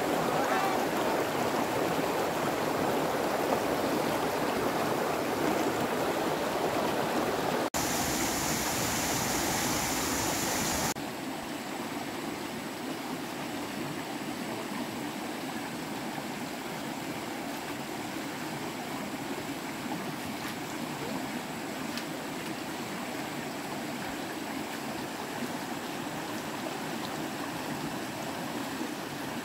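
Steady rushing of running water, like a stream. The sound changes abruptly about 8 seconds in, turning hissier, and again about 11 seconds in, where it becomes a little quieter and stays even.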